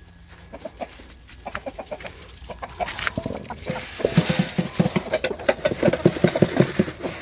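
A flock of chickens clucking, sparse at first, then quick close-together clucks from about four seconds in.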